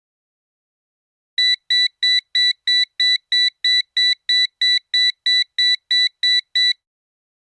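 Electronic telephone beeping: a run of about seventeen short, even, high-pitched beeps, about three a second, starting about a second and a half in and stopping shortly before the end.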